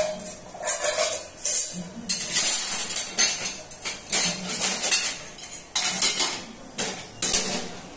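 Steel kitchen utensils, a pair of metal tongs and a steel tin, clinking and clattering as they are handled, in repeated irregular sharp clanks.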